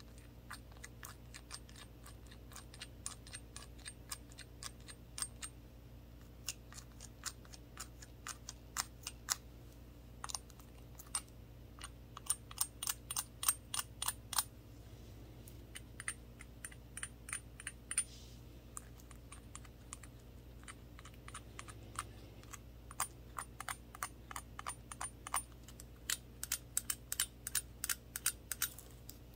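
Toothpick-tipped glove fingers tapping a small handled shot glass: sharp clicks in quick, irregular runs, with a sparser stretch in the middle.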